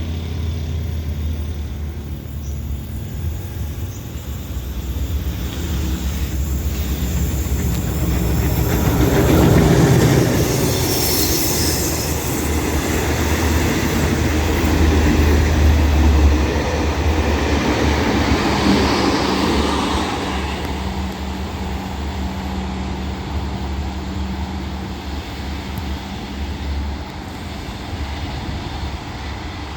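Diesel locomotive-hauled passenger train running past, a steady low engine hum under wheel and rail noise that swells to its loudest around ten and sixteen seconds in, then eases off.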